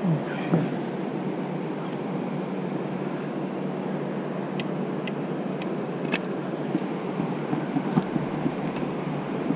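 Steady rush of water pouring over a river weir, with a few light clicks about halfway through.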